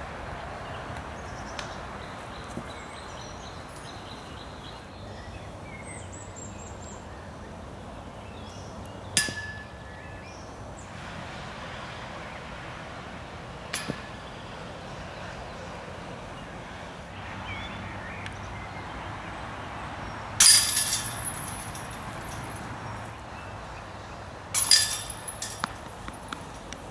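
Disc golf discs hitting a chain basket: four sudden metallic crashes of chains and cage, each with a short rattling ring, the third the loudest.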